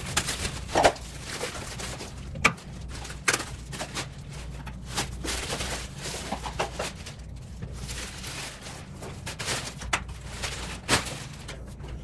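Plastic wrapping rustling and crinkling as a folding camping rocker chair is pulled free and handled, with scattered knocks and clicks from its metal frame, the sharpest about a second in, about two and a half seconds in and near the end.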